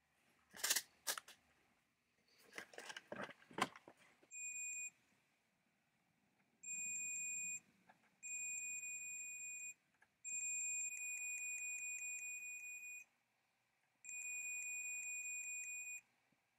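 Mastercraft digital multimeter's continuity beeper: a steady high-pitched beep, five times, each from about half a second to nearly three seconds long, as the test probes touch the bars of an electric motor armature's commutator. Each beep signals continuity between the bars. Before the first beep there are a few light clicks and rustles of the probe leads being handled.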